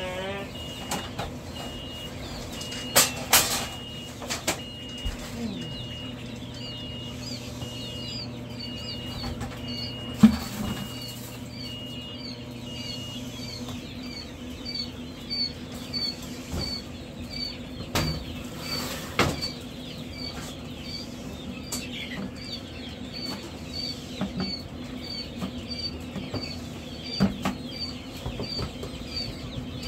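Baby chicks peeping in brooder cages, one high peep repeating about twice a second, over a steady machine hum. A few sharp knocks and rattles of the cage trays are heard, the loudest about ten seconds in.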